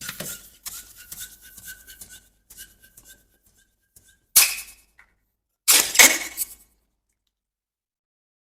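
Rubber balloon squeaking as it is rubbed and handled, then a sharp pop a little past four seconds and a second, louder and rougher burst lasting about a second near six seconds.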